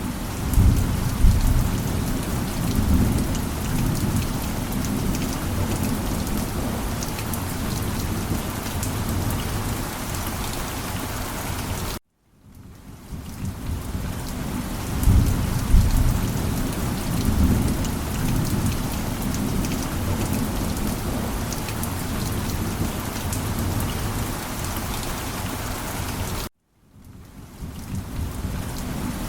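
Steady heavy rain with low rolls of thunder, the thunder loudest about a second in and again near the middle. The track cuts to silence twice for a moment and fades back in.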